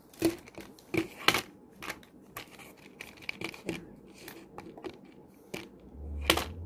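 Plastic jewellery packaging being handled: crinkling and rustling with sharp clicks and snaps, the loudest about a second in and near the end.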